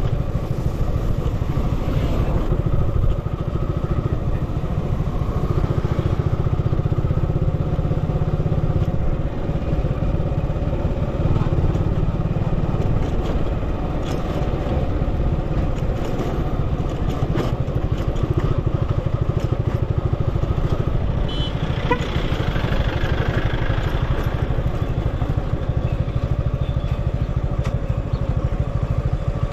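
A vehicle on the move: steady engine and road noise with a deep rumble. A short run of clicks comes about three-quarters of the way through.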